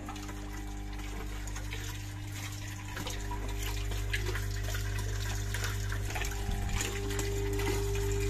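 Topas 8 septic station running: a steady hum from its air compressors under the churning, bubbling water of the aerated chamber, getting a little louder about three seconds in.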